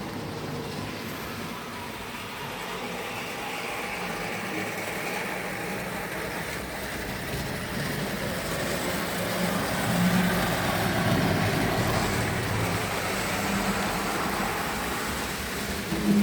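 Tri-ang OO-gauge model trains running round the track, a steady electric-motor hum with wheels rumbling on the rails. It grows louder from about halfway through as a train comes close, and there is a short knock at the very end.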